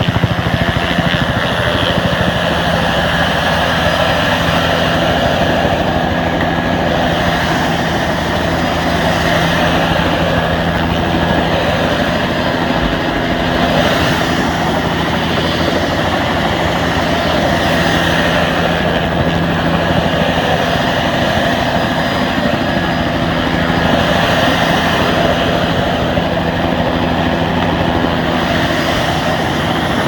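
Helicopter running steadily on the ground, its engine and rotor loud and even throughout.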